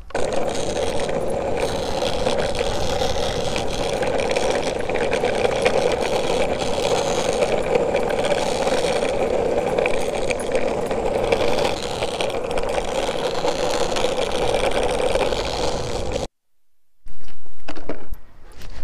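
Boosted electric skateboard rolling fast over rough ground: a steady rumbling roll of the wheels. It cuts off sharply about 16 seconds in, and after a brief silence comes a loud burst of noise lasting about a second.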